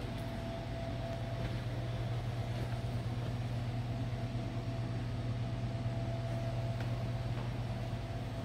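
Steady low mechanical hum with a thin, steady whine above it, with a few faint ticks.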